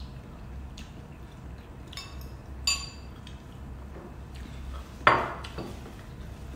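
Metal spoons clinking against ceramic soup bowls a few times, one clink ringing briefly, with a louder knock about five seconds in.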